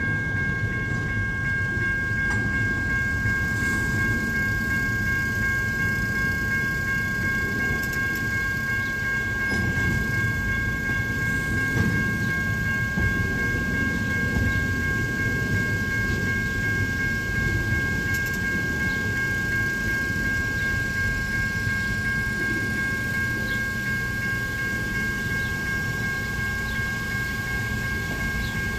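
An intermodal freight train's cars rolling past with a steady low rumble, and a steady high-pitched whine held on a few fixed pitches.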